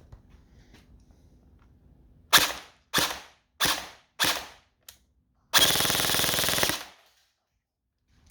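Electric airsoft gun (AEG) firing: four short bursts in quick succession, then one longer full-auto burst of about a second at a high rate of fire, the shots running together into a rapid buzz.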